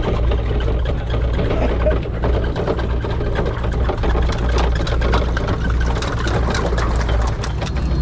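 A fishing boat's engine running steadily underway with a low, even hum, overlaid by scattered sharp clicks and knocks.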